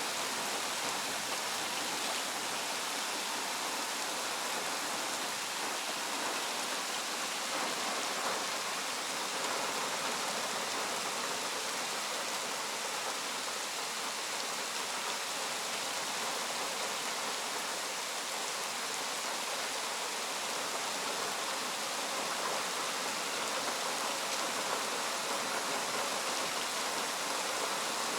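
Heavy rain pouring down in a thunderstorm: a steady, even hiss that holds at one level throughout.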